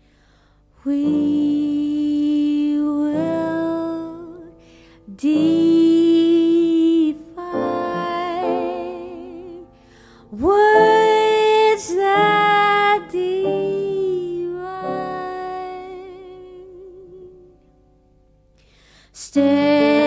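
Female jazz vocalist singing slow phrases with held notes and vibrato, separated by short pauses. A near-quiet gap comes just after the start and another shortly before the end, after which a new phrase begins.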